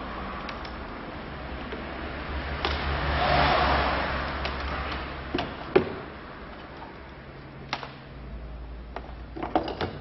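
Car engine running steadily, with a swell of noise about three to four seconds in and a few sharp clicks later on.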